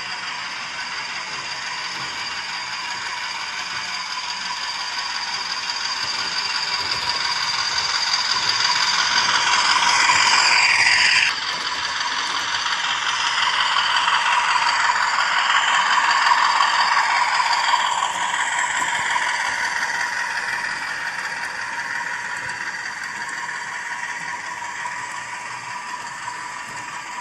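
Hornby Class 50 model diesel locomotive running on the layout, its DCC sound decoder playing the diesel engine sound through a small speaker over a continuous mechanical rattle. The sound swells for about ten seconds and drops suddenly about eleven seconds in. It then swells again and slowly fades.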